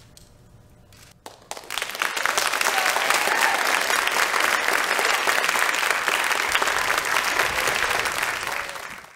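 Audience applauding in a theatre. After about a second of quiet, the clapping starts and quickly swells to steady, loud applause, which cuts off suddenly near the end.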